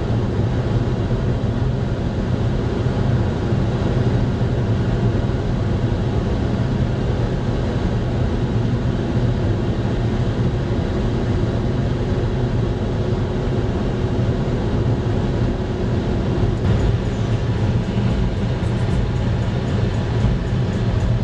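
Cabin noise of an Audi A3 2.0 TDI common-rail diesel held near its top speed at a little over 200 km/h: a steady low drone of engine, wind and tyres.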